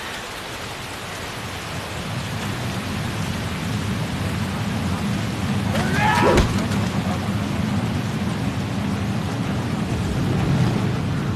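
Heavy rain pouring down, with a low rumble building up and growing louder from about two seconds in. A brief shout comes about six seconds in.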